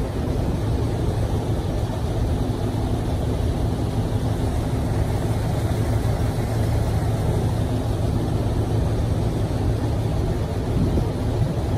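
Heavy tanker trucks' diesel engines idling: a steady low hum.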